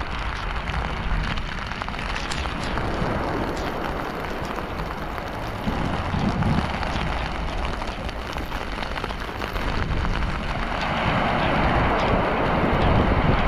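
Heavy rain pouring steadily, with low gusts buffeting the microphone now and then.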